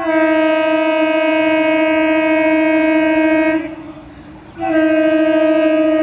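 Horn of an approaching Indian Railways local train, sounded loud and steady: one long blast of about three and a half seconds, then, after a brief pause, a second shorter blast.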